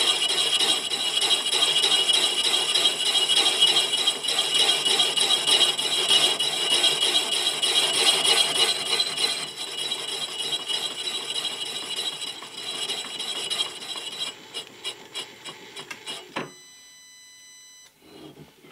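Boring bar in a knee mill's boring head cutting around a cement mixer yoke's metal journal: a steady cutting hiss with high ringing tones. About 14 seconds in it thins to separate ticks as the spindle slows and stops, with one brief metallic ring about 16 seconds in.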